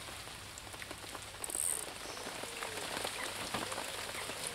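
Steady rain falling, a constant hiss dotted with many light raindrop taps, with a brief high hiss about a second and a half in.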